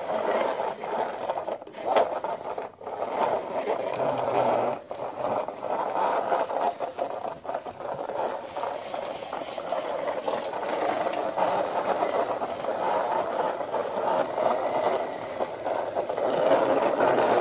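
Plastic toy jeep rolled back and forth across a hard floor by hand, its plastic wheels and body rattling and scraping without a break.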